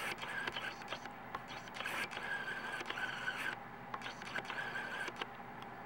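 Scraping and rubbing against a rubber smart wristband in several bursts, with small clicks, as hands tug its end off to pull out the built-in USB charger. The tight-fitting end that keeps the band waterproof is hard to pull out.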